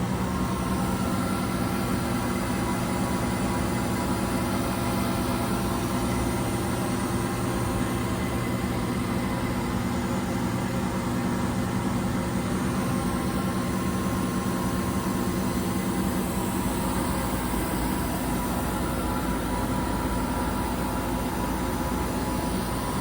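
2007 Romi M-27 CNC lathe running under power: a steady machine hum made of several steady tones, with one higher tone coming in about halfway through.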